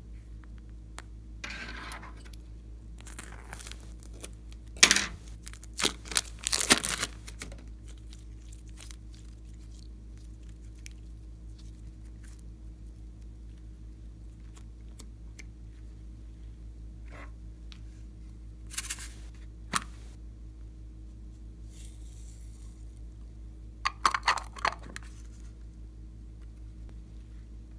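Disposable piping bag crinkling and rustling in the hands, loudest in a few sharp crinkles about five to seven seconds in, with scattered light clicks later and another short burst of crinkling near the end. A steady low hum runs underneath.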